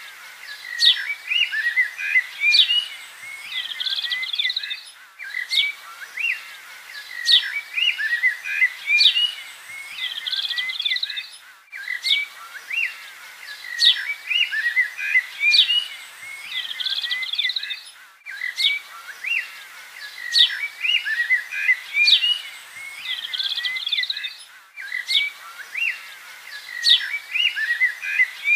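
Small birds chirping and twittering, with sharp high calls and quick trills. The same stretch of song repeats about every six and a half seconds.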